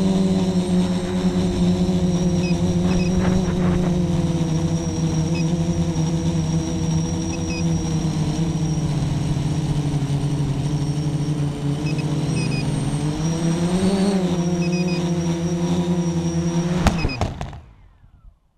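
Quadcopter's electric motors and propellers running, heard through a GoPro mounted directly on the frame: a steady whine whose pitch shifts with throttle and rises briefly about three-quarters of the way in. Near the end there is a knock as it touches down, then the motors wind down to silence.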